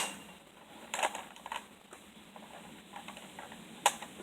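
A few sharp clicks or knocks: a loud one at the start, two more about a second in, and another near the end.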